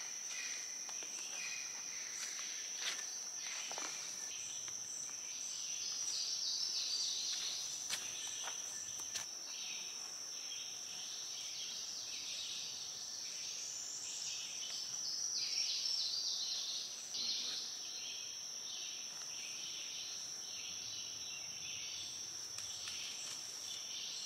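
Woodland insects keep up a steady, high-pitched buzzing trill. Birds sing and chirp over it, busiest in the middle stretch, with a few light clicks in the first half.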